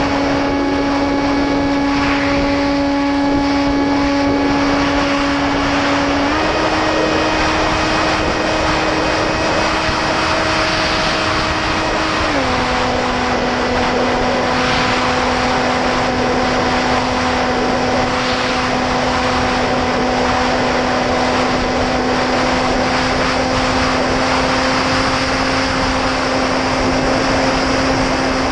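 Electric motor and propeller of an 8S FPV flying wing, heard from its onboard camera: a steady whine with wind rushing over the microphone. The pitch steps up slightly about six seconds in, then drops to a lower steady note about twelve seconds in, as the throttle is changed.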